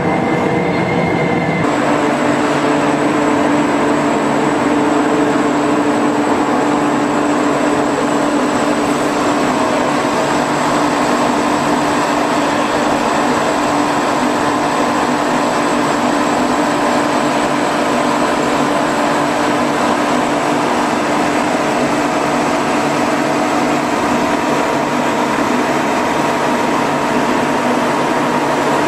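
Steady industrial machinery drone with a constant hum and a thin high whine, changing character about two seconds in and then holding even.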